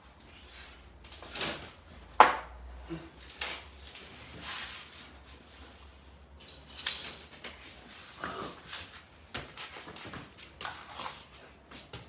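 Irregular metallic clinks and knocks of hand tools and parts being handled while a small-block Chevy engine is dismantled, with rustling between them; the loudest is a sharp knock about two seconds in.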